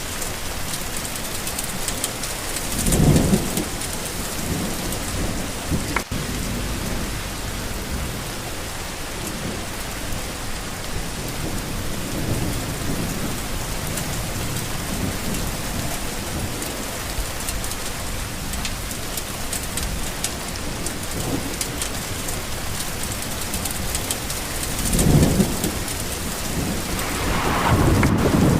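Steady heavy rain falling on surfaces, with rumbles of thunder about three seconds in and again near the end.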